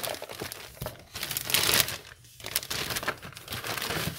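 Thin plastic shopping bag rustling and crinkling as it is handled and rummaged through, in irregular bursts with a short lull about two seconds in.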